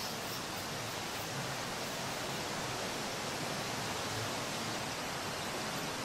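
Steady rushing of a mountain stream, an even noise that neither rises nor falls.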